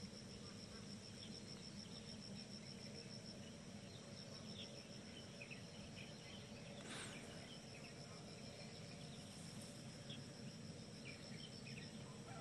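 Insects trilling in a steady, high-pitched, rapidly pulsing chorus over a faint low background hum, with scattered faint chirps and one brief sharp sound about seven seconds in.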